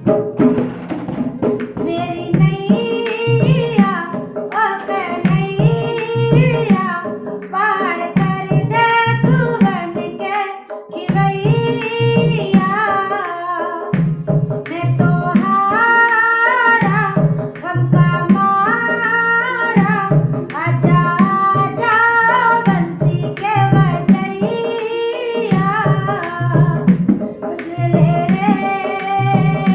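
A woman singing a melodic song over an accompaniment with a steady drum beat.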